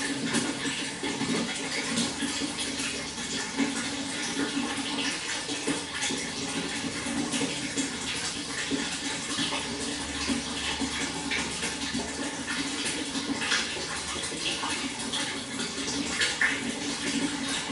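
Water flowing steadily, with many small irregular splashes and trickles.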